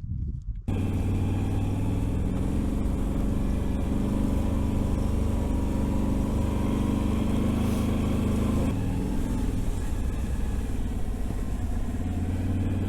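Can-Am Renegade 1000 ATV's engine running steadily while riding along a trail. It cuts in abruptly about a second in and eases off slightly near the three-quarter mark.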